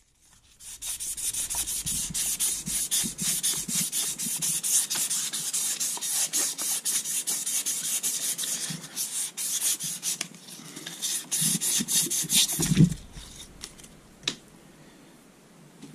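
Abrasive strip being worked back and forth by hand around a journal of a Rover 3.5 litre V8 crankshaft, a fast, steady rasping of quick strokes. This is a light polish to take scratch marks off the journal. The rubbing stops about 13 s in with a knock.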